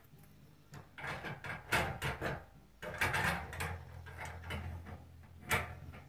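Metal sliding, scraping and clunking as the portable bandsaw sawmill's parts are worked by hand, in two stretches of a second or two, with a low hum under the second and a sharp click near the end.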